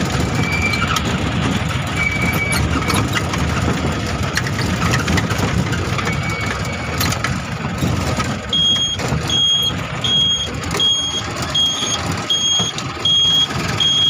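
Engine and road rumble of a moving vehicle, heard from inside the cabin. About eight seconds in, a high electronic beep starts and repeats evenly a little under twice a second, typical of a reversing beeper.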